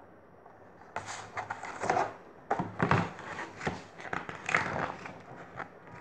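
Rustling and scraping handling noise close to the microphone: a run of sharp, crinkly strokes from about a second in until shortly before the end.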